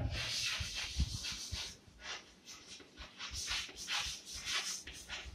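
Chalk scratching on a blackboard as words are written: a run of short, hissy strokes with brief pauses between them.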